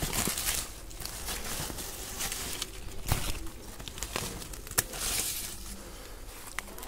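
Eggplant leaves rustling and crinkling as hands push through the foliage, with a few sharp clicks, the clearest about three and nearly five seconds in.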